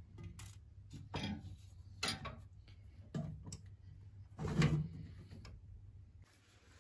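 Brass kerosene heater being put back together after lighting: a series of metallic clunks and knocks as its chimney is lowered over the burner and the fittings are set in place. The loudest clunk comes about four and a half seconds in.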